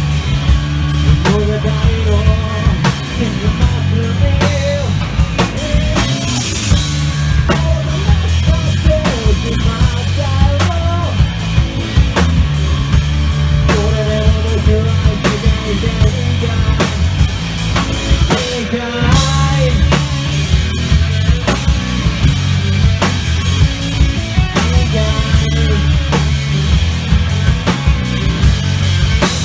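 Rock band playing: distorted electric guitars and a drum kit, with a lead vocal singing the melody over them.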